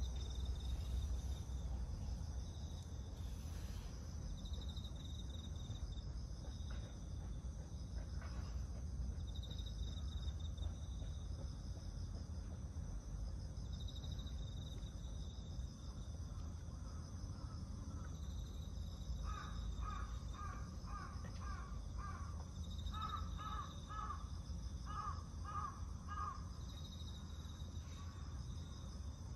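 Outdoor ambience: insects trilling steadily, high and pulsing, over a low rumble. About two-thirds through comes a run of short, evenly repeated calls, a couple a second, in two bouts.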